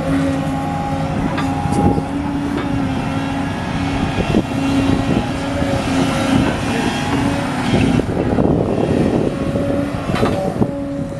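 Tracked excavator digging a trench: its diesel engine and hydraulics run steadily under load, with a few knocks from the bucket now and then.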